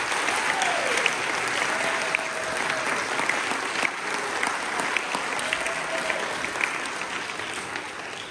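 Audience applauding, with a few voices calling out over the clapping. The applause dies away near the end.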